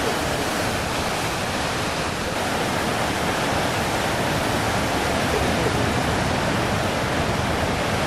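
Big storm-swell waves breaking on the shore: a dense, continuous rush of surf with no pause between breakers, a little louder about five seconds in.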